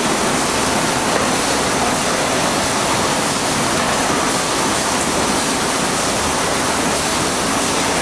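PE protective film coating machine running: a loud, steady rushing noise from its rollers and drives, with no rhythm or changes.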